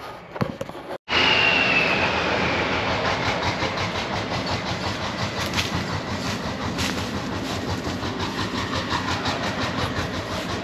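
A heavy vehicle on the move with a fast, even clatter and a steady running noise. It starts abruptly about a second in, with a high whine that slides slowly down in pitch over the next few seconds.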